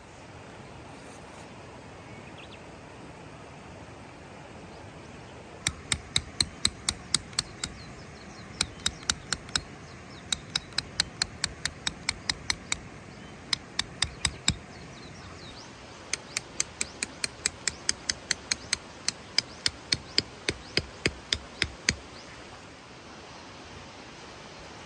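Tent pegs being driven into the ground with a hammer: three runs of quick, even strikes, about four a second, with short pauses between the runs.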